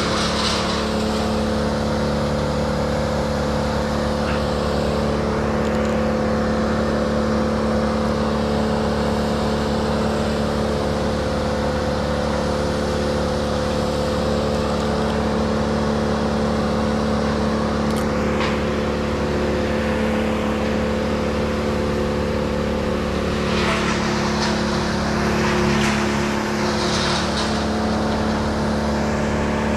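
An engine running steadily at constant speed, with a few brief hissing sounds near the end.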